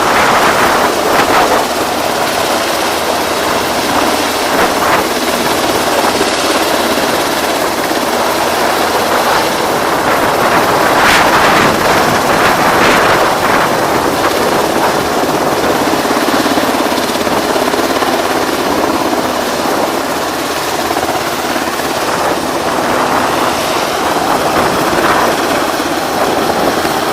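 Wind buffeting the microphone: a loud, continuous rushing that swells with stronger gusts now and then.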